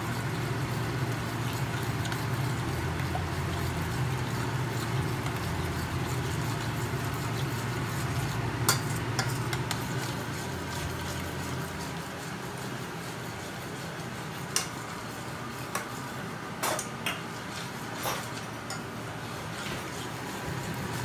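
A spoon stirring a flour-and-milk white sauce in a metal saucepan, with a few light clinks of the spoon against the pan in the second half, over a steady low hum.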